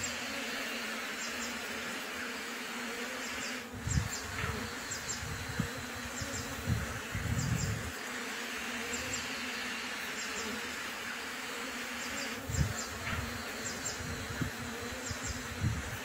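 Asian honey bees (Apis cerana) buzzing steadily at the entrance of a clay-pot hive, with a few short low thumps.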